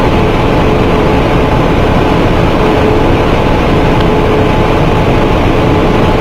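Flexographic label press running: a loud, steady machine din, with a faint hum that comes and goes.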